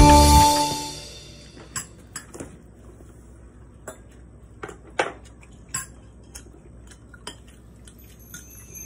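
Background music fading out during the first second, then a handful of short, scattered clinks and taps of chopsticks and cutlery against dishes at a meal table.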